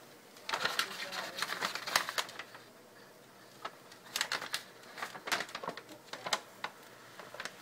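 Brown paper bag crinkling and rustling as a large cat shifts around inside it. It comes as crackly bursts, one starting about half a second in and another from about four seconds in.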